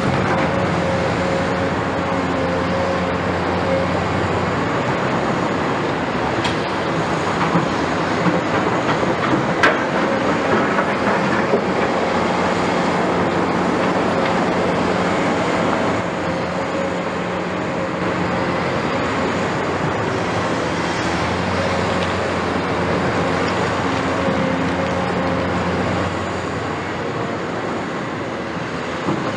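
Caterpillar 329E hydraulic excavator running under load as it digs: a steady diesel engine hum with hydraulic and track noise, dipping slightly about halfway and again near the end. A few metallic knocks and clanks, likely the bucket against soil and rubble, come about a third of the way in.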